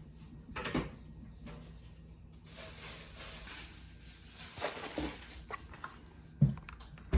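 Packaging being handled during a shoe unboxing: paper rustling for a couple of seconds in the middle, with a few soft knocks of the box before and after.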